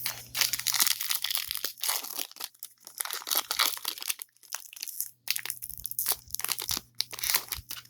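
Foil wrapper of a trading-card pack crinkling and tearing as it is ripped open and the cards are pulled out, in irregular bursts of rustling with a couple of brief pauses.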